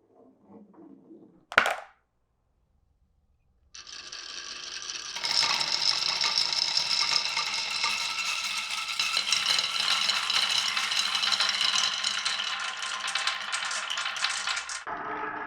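Glass marbles on a marble run: a single sharp click, then after a short silence a dense, continuous clatter of many marbles rolling and clicking along the track, which swells about five seconds in and cuts off suddenly near the end.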